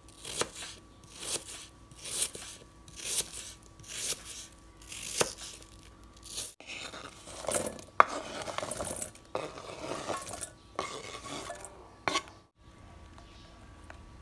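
A kitchen knife chopping through peeled apple onto a wooden cutting board, about one cut a second. Then diced apple is scraped off the board into a stainless steel bowl, the pieces pattering and sliding on the metal, with two sharp knocks.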